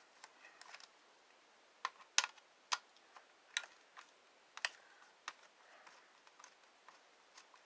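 Irregular light clicks and taps of a screwdriver and plastic parts being handled while a Shark vacuum is taken apart, the sharpest click about two seconds in.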